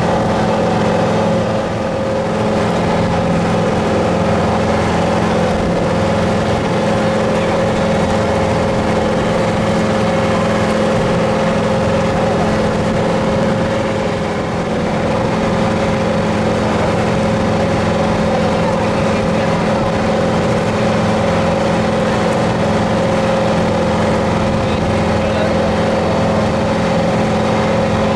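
Motorboat engine running steadily at an even speed, a constant drone over the rush of water and wind.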